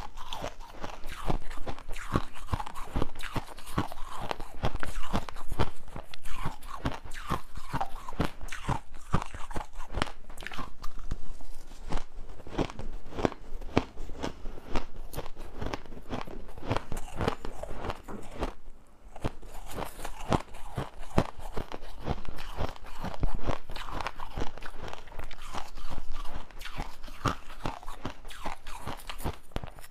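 Crushed ice being bitten and chewed in the mouth, picked up close by a clip-on microphone: a dense, continuous run of crisp crunching cracks, with a brief lull about two-thirds of the way through.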